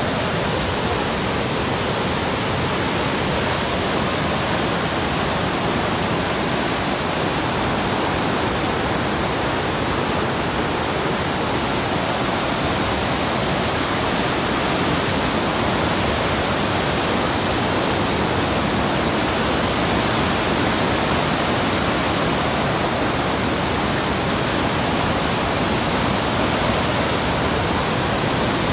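Muddy river in flood rushing past: a steady, loud, unbroken rush of churning water.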